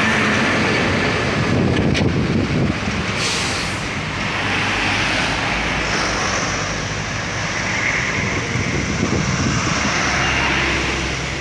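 Diesel trucks and cars passing close by one after another, their engines loud and steady. A short hiss comes about three seconds in.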